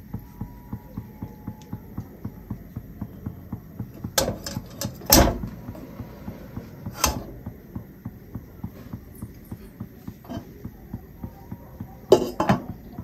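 Metal cookware clanking in a kadai: a handful of sharp knocks, the loudest about five seconds in and two more near the end, over a steady light ticking about three times a second.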